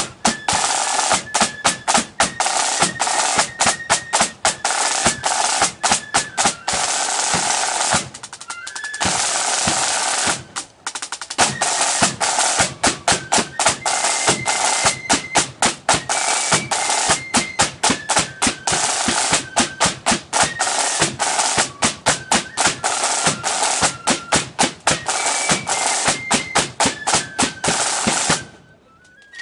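Flute band playing: fast snare drumming and bass drum strokes under a high flute melody. The drumming breaks off briefly twice, and the band stops about a second before the end.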